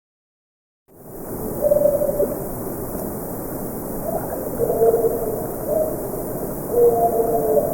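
Noisy outdoor recording with a steady hiss, starting abruptly about a second in. Over it come three short, faint vocal-like calls about every two to three seconds, each with two pitches at once, which the uploader puts forward as possible Sasquatch vocals.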